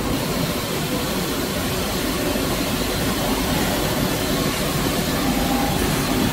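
Multi-colour rotogravure printing press running, a steady mechanical noise of the machine as film moves through its rollers.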